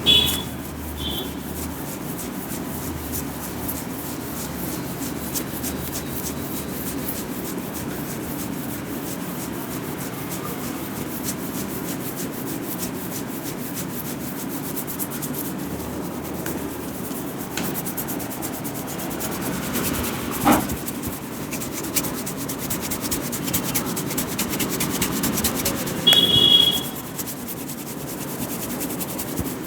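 A barber's hands rubbing and kneading a client's scalp and hair in an Indian head massage, a steady rough rubbing. A short high-pitched chirp sounds near the start and again, louder, near the end, and a single sharp click comes about twenty seconds in.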